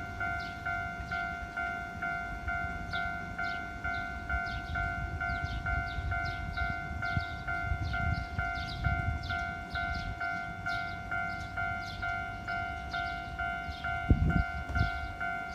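Japanese railroad crossing warning bell ringing steadily, a little over two strikes a second, with a second, higher bell striking out of step. A low rumble runs beneath, with a low thud near the end.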